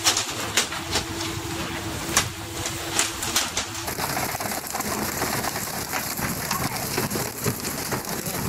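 Sea water splashing and spraying alongside a tuna pole-and-line fishing boat, a dense rain-like hiss. In the first half a steady hum runs under it, with several sharp slaps as tuna hit the deck.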